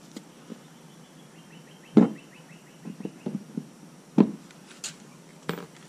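Thru-hull outlet fitting for a bilge pump being pushed and worked into a drilled hole in a plastic boat hull: a few sharp knocks and taps, the two loudest about two seconds and four seconds in.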